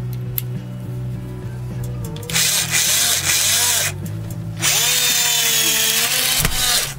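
Makita 6093D 9.6 V cordless drill running twice on a 2-inch wood screw. The first run is about a second and a half long, the second about two and a half seconds, and the motor's whine shifts in pitch under load.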